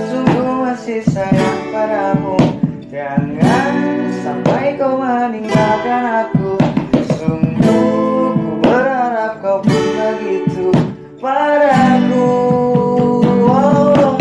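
A love song: a voice singing a slow melody over strummed acoustic guitar, with a short break in the phrase near the end.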